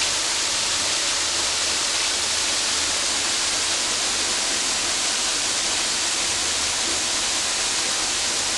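Indoor waterfall crashing steadily, a constant dense rush of falling water that is really loud.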